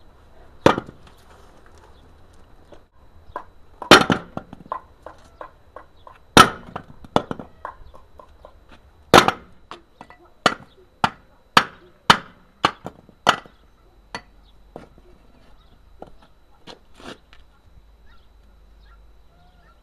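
Sharp blows struck one after another, unevenly spaced, on a seized refrigerant compressor to break its stuck parts loose; over twenty of them, the loudest about four, six and nine seconds in.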